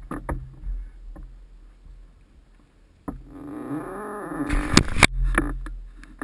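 Handling noise on a wing-mounted action camera: after a near-quiet stretch, rubbing and scraping start suddenly about three seconds in as a hand takes hold of the camera and its mount, with two sharp knocks close together near the five-second mark.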